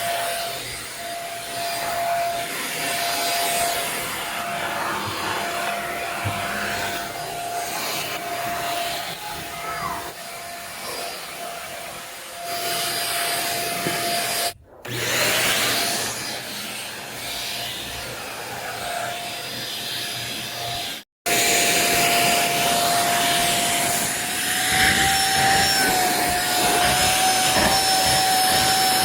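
Deerma DX810 handheld vacuum cleaner (600 W motor) running, a steady motor whine over the rush of air. The sound breaks off for an instant twice. It is louder in the last third, where the whine rises slightly in pitch.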